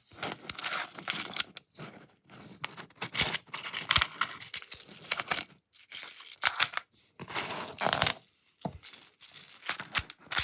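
Magnetic building blocks being handled and snapped together: a run of sharp clicks and clatter with rummaging and scraping between them, stopping and starting in short pauses.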